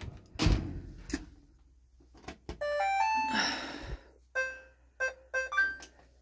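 Maytag top-load washing machine control panel: a thump near the start, then a short rising chime melody as it powers on, followed by four short electronic beeps as buttons are pressed to set a spin cycle.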